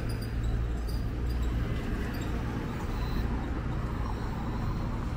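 Steady low hum of an engine running, over a faint background haze with a few small ticks.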